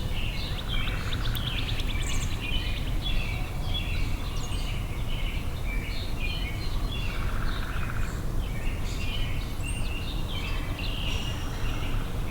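Several wild birds chirping and singing, many short overlapping chirps without a break, over a steady low rumble.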